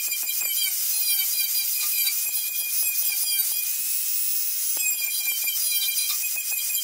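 Angle grinder running with a steady high whine, its abrasive disc rasping against the wooden axe handle as it shapes and smooths it. For about a second, a little past the middle, the disc is lifted clear and spins free, then goes back onto the wood.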